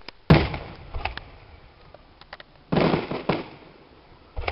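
Aerial firework shells bursting: a sharp bang about a third of a second in, a few faint crackles, two bangs in quick succession near three seconds, and another right at the end, each trailing off.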